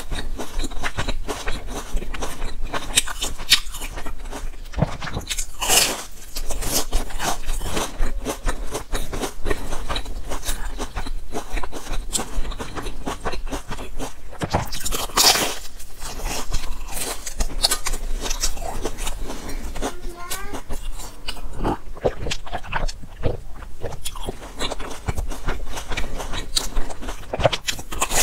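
A person biting and chewing crusty baked buns, the crisp crust crunching and crackling throughout, with louder crunchy bites about six and fifteen seconds in.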